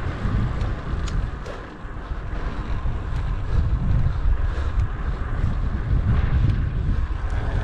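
Wind buffeting an action camera's microphone, a gusting rumble heavy in the low end.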